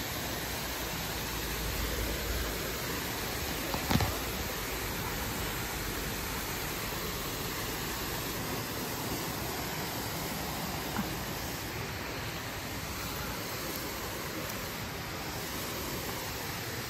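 Steady rush of water pouring over a spillway. A brief sharp knock about four seconds in, and a faint tick later.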